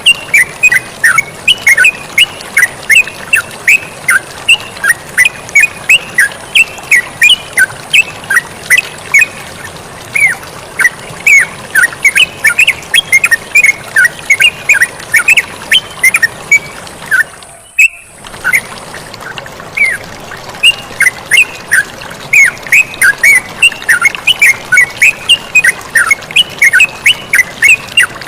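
Yellow-vented bulbuls (terucukan) calling in fast, chattering runs of short notes, with running water hissing behind. The sound cuts out briefly about two-thirds of the way through, then resumes.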